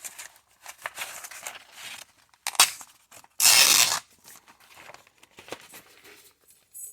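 A piece of crocus cloth, a fine abrasive polishing cloth, being torn from a sheet by hand: a few rasping rips, the loudest lasting about half a second past the middle.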